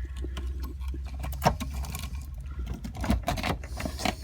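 Irregular clicks, knocks and scraping as a car's fuel pump assembly is rotated and pulled against the tight opening of the fuel tank, catching on the tank's mouth, with one sharper knock about a second and a half in.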